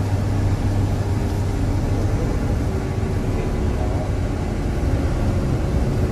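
Indonesian police Barracuda armoured vehicle's engine running, a steady low drone heard from inside its cabin.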